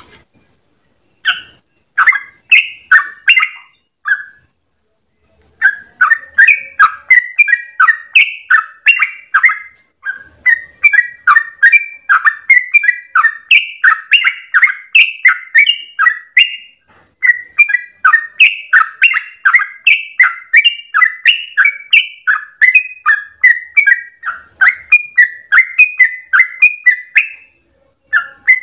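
Yellow-vented bulbul (trucukan) singing fast, bubbling chirped notes, about two to three a second. A short phrase comes first, then after a pause a long unbroken run of song.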